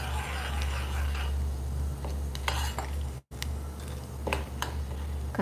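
Metal spoon stirring and clinking against a small stainless steel pot as a tempering of dals, mustard seeds and cumin fries in oil, with a faint sizzle. A steady low hum runs underneath, and the sound cuts out for a moment about three seconds in.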